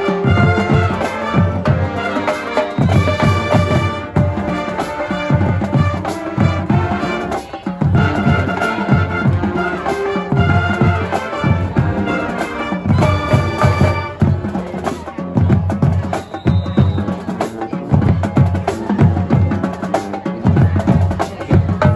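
High school marching band playing a stand tune in the bleachers: brass and saxophones over a driving drum line. About fourteen seconds in the horns mostly drop out and the drums carry on alone.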